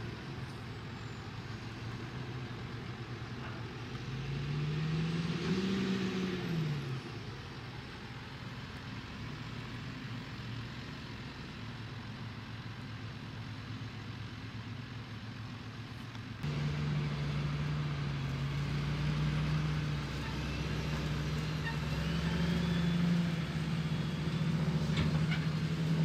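Diesel engines of John Deere tractors running at work. One engine revs up and settles back about five seconds in. About sixteen seconds in the sound changes abruptly to a louder, steady engine drone.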